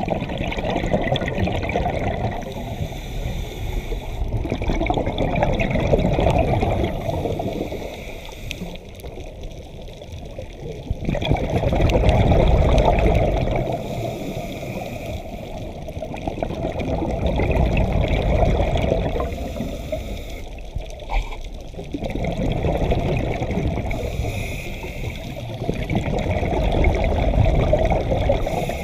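Scuba diver breathing underwater through a regulator: the bubbling and gurgling of each breath swells and fades in slow waves, about every five or six seconds.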